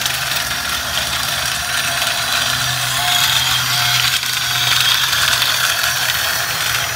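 Battery-powered toy trains running on plastic track: small geared motors whirring with a steady mechanical rattle of wheels and gearboxes.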